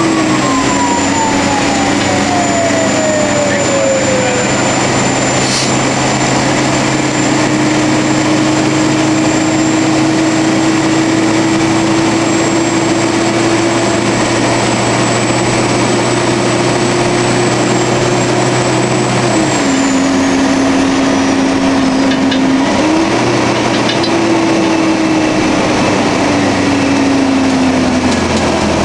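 Fire engine running with a loud, steady engine and road noise. The engine's pitch holds, drops about two-thirds of the way in, comes back up a few seconds later and falls away near the end. A separate tone glides down in pitch over the first few seconds.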